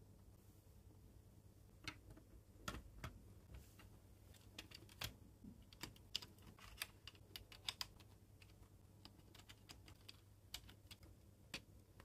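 Faint, irregular light clicks and taps of small plastic and diecast parts being handled, as a 1:32 scale John Deere 9750 STS combine model and its corn header are fitted and adjusted. The clicks are densest in the middle stretch, with a few louder ones.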